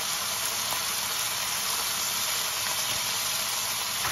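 Bone-in beef chunks and sliced onion sizzling steadily in hot oil in a stainless steel pan.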